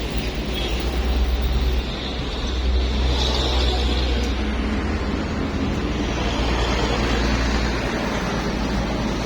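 An engine running steadily, with a strong, even low note.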